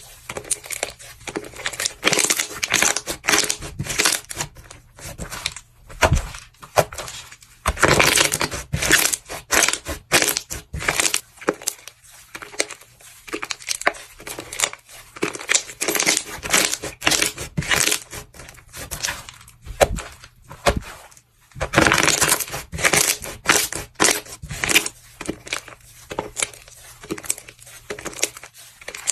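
A crunchy material being crushed: dense runs of crackles and crunches that come in waves a few seconds long.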